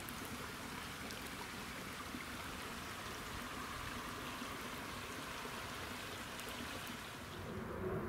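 Shallow stream running and trickling over stones, a steady rush of water. Near the end it drops away to a quieter open-air background.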